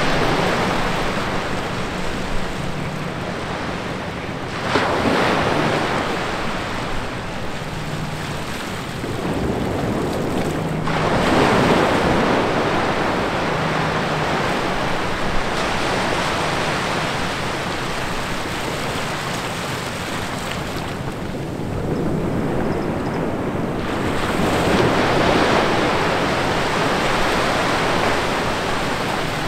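Small ocean waves breaking in a gap between rocks and washing up over wet sand, the rush of water swelling and easing every few seconds.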